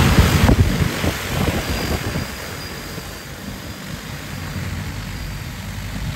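DJI Agras T40 crop-spraying drone's coaxial rotors spinning up and lifting it off close by, loud and choppy for the first second or two. The sound then settles into a steadier, fainter hum with a thin motor whine as the drone climbs away.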